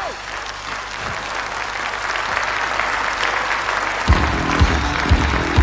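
Audience applauding after a song ends. About four seconds in, music with a steady drum beat of about two hits a second starts under the applause.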